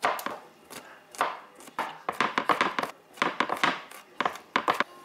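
Chef's knife chopping garlic cloves on a wooden cutting board: a string of uneven knife strikes, coming in quick runs from about two seconds in as the garlic is minced.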